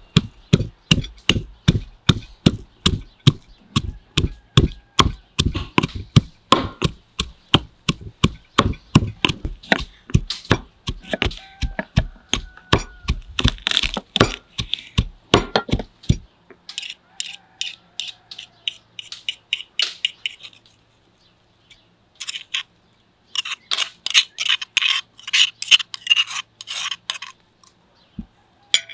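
Stone pestle pounding garlic in a stone mortar, steady hard strikes about two to three a second, each with a dull thump. Then bursts of quicker, crisp knife cuts through green chilies onto a wooden cutting board.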